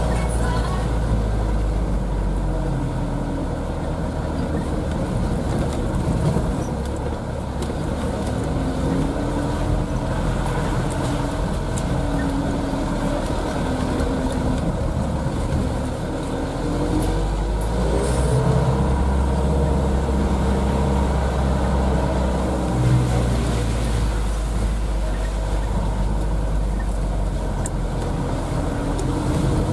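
Isuzu Elf minibus's diesel engine running under way, heard from inside the cab, a steady drone whose pitch rises and falls as the speed changes, with a couple of brief knocks from the body.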